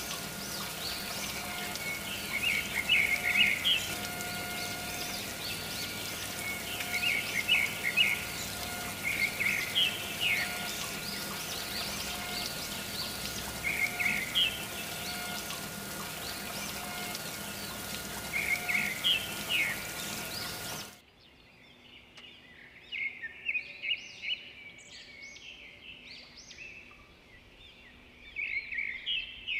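Small birds chirping in short clusters every few seconds, over a steady hum that cuts off abruptly about two-thirds of the way through; the chirping carries on more faintly after the cut.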